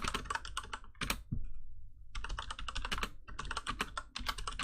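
Fast typing on a Cooler Master MasterKeys Pro S mechanical keyboard with Cherry MX Brown switches fitted with rubber O-rings: a rapid run of key clicks, with a pause of about a second shortly after the start. The O-rings damp the clack of keys bottoming out, leaving mostly the sliding sound of the key travel.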